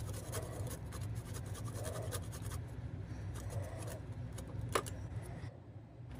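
A garlic clove being grated on the fine side of a stainless-steel box grater: quick repeated scraping strokes of garlic over the metal teeth. A sharp tap comes near the end, and the strokes stop shortly after.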